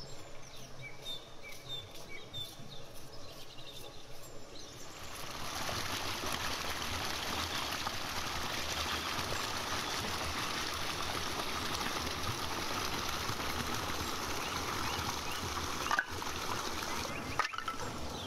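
Water rushing steadily down a stone channel, starting about five seconds in. Before it, a knife slicing onion over a bowl with birds chirping. Two sharp clicks come near the end.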